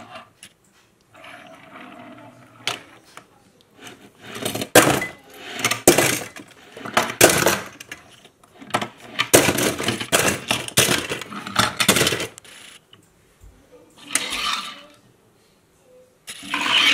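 Die-cast metal toy cars clinking and clattering as they are handled, knocked together and set into a plastic storage case. The clicks and rattles come thickest through the middle of the stretch, with quieter pauses between handfuls.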